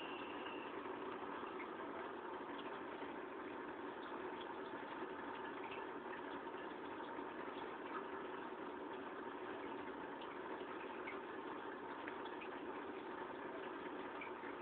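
Steady aquarium bubbling and air-pump hum, with faint scattered ticks of bubbles.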